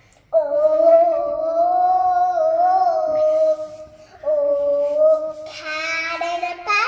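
A young girl singing, holding long, slightly wavering notes, with a short break about four seconds in.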